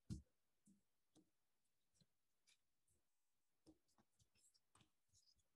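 Faint clicks and taps of tarot cards being picked up and laid down on a wooden tabletop, with a soft knock right at the start.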